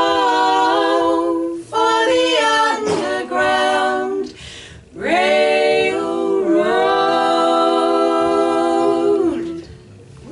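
Three women singing a cappella in three-part harmony: two short held phrases, then a long sustained closing chord that fades out near the end.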